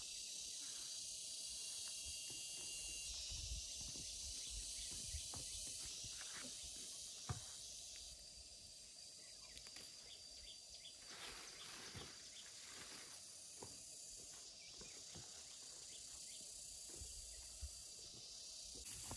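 A steady, high-pitched chorus of insects, with scattered soft clicks and knocks; the sharpest knock comes about seven seconds in.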